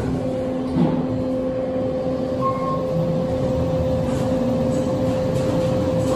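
KONE EcoDisc gearless traction elevator car riding up between floors: a steady hum and rumble with a constant mid-pitched whine, and a light click about a second in.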